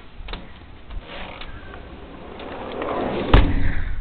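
Irregular crunching and clicking of footsteps in fresh snow, building toward the end, with one heavy thump near the end.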